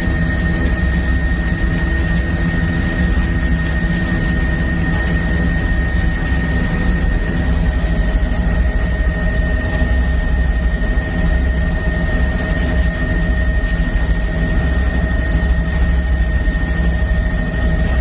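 Helicopter running steadily: a constant low rumble of engine and rotor with a steady high whine over it.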